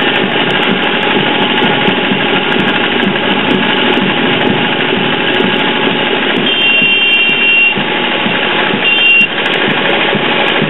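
Loud, steady street din dominated by a running engine, with a high steady horn-like tone sounding twice in the second half, once for about a second and once briefly.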